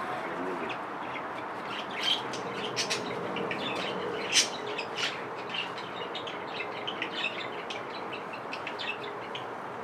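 Birds chirping in short, scattered calls over a steady background hiss, with one sharper tick a little over four seconds in.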